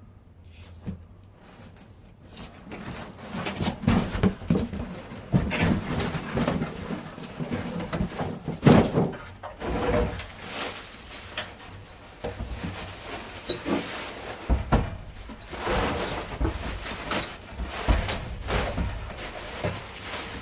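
Irregular knocks, clunks and rustling of packaging and parts being handled, starting about two seconds in.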